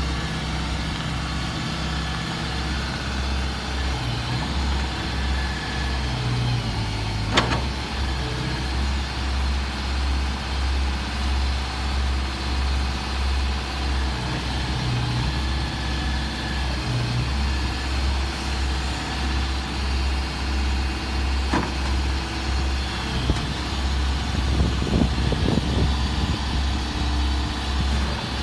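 O&K MH Plus wheeled excavator's diesel engine running steadily with a low, pulsing throb. A sharp knock comes about seven seconds in and another around twenty-one seconds, and a cluster of clanks follows near the end.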